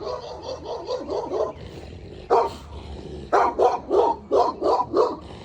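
Angry dogs barking in quick runs: a rapid string of barks, a single bark near the middle, then another run of about seven barks.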